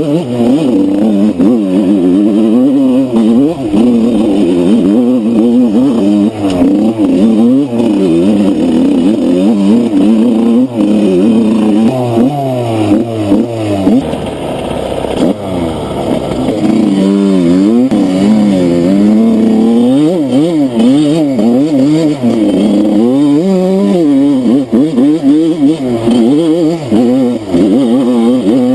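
Enduro motorcycle engine being ridden off-road, revving up and down over and over as the throttle is opened and closed, its pitch rising and falling every second or so. About halfway through it drops lower and quieter for a couple of seconds, then picks up again.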